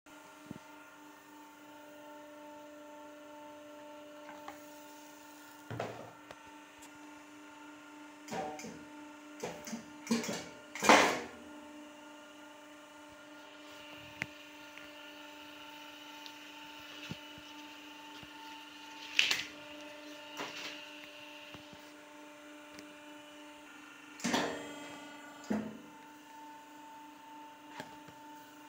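Areca leaf plate press machine running with a steady hum, broken by scattered knocks and rattles as the leaf sheath is handled and the dies are worked. The loudest knock comes about eleven seconds in.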